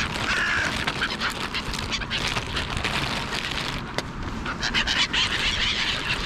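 A flock of seagulls and crows calling together while feeding, a dense overlapping chorus of short calls.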